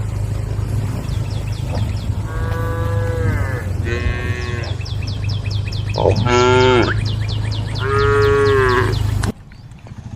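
A herd of cattle mooing: about four long, drawn-out calls, the loudest a little past halfway, over a fast high ticking and a steady low hum that cuts off abruptly near the end.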